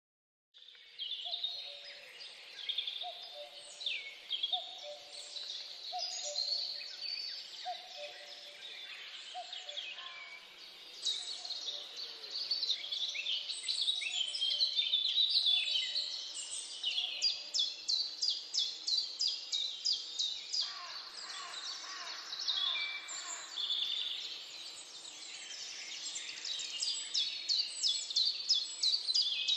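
A chorus of songbirds chirping and whistling. A low two-note call repeats about once a second through the first half, and a rapid trill of about four or five notes a second comes a little past the middle.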